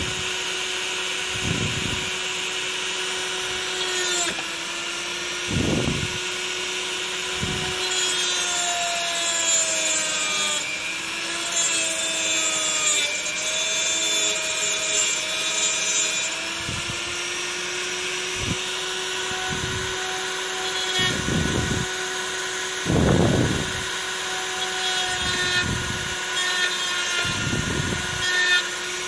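Handheld rotary tool with a thin cut-off disc running at speed, cutting through a small flattened metal terminal. Its steady whine drops and wavers in pitch for several seconds, about a third of the way in, as the disc is pressed into the metal. Several short low bumps are heard along the way.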